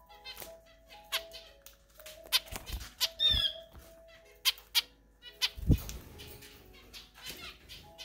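A cockatiel pecking and cracking seed from an open hand, a scatter of sharp beak clicks, with a short chirp about three seconds in and a few soft thumps. Soft background music with held notes plays underneath.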